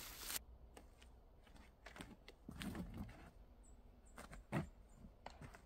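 Faint footsteps and scuffs of a disc golfer's run-up and throw from a tee pad, a short rustle at the start and a few light knocks spread through.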